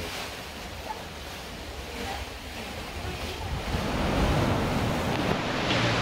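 Wind and open-ocean waves heard from aboard a sailing catamaran under way, with wind buffeting the microphone; the rush swells louder about four seconds in.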